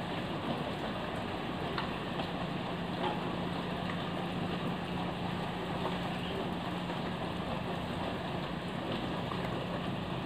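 Steady rain falling, an even hiss with scattered faint drip ticks, over a constant low hum.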